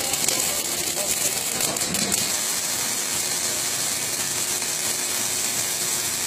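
Robotic arc welding on a steel plate: the welding arc gives a steady, even crackling hiss.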